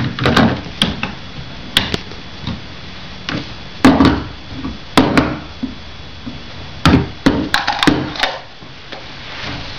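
Hard plastic toy-kitchen pieces knocking and clattering as they are handled: a string of irregular clicks and knocks, bunched together about four, five and seven to eight seconds in.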